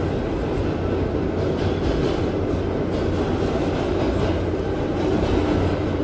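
Interior noise of a moving New York City Subway 7 train car: a steady rumble of wheels and running gear, with irregular clicks from the wheels on the rails.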